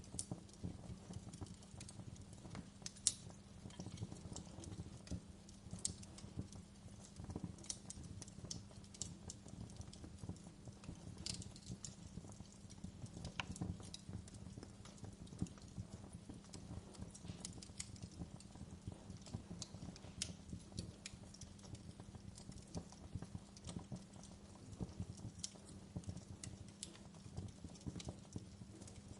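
Wood fire in a fireplace crackling: irregular sharp pops and snaps over a steady low rumble, with one louder pop about three seconds in.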